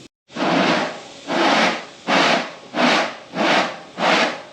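Six rasping strokes of a hand tool worked back and forth, evenly paced at about one and a half a second.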